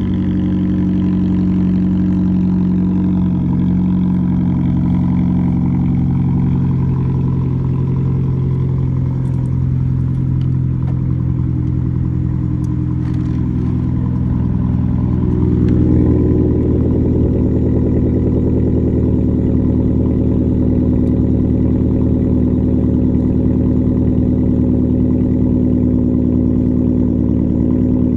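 A 2006 Mazda 3's 2.3-litre four-cylinder idling steadily after a cold start, through an exhaust with the resonator and muffler deleted but both catalytic converters kept. About halfway through the sound grows a little louder and fuller.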